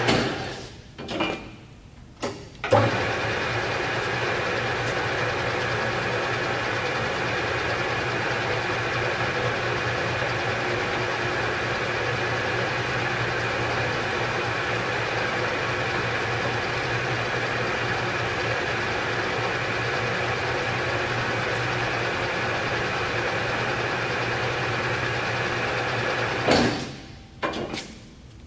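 Harrison M300 engine lathe running under power. After a couple of short knocks, the spindle drive starts with a clunk about three seconds in and runs with a steady hum and whine made of several constant tones, then runs down and stops near the end.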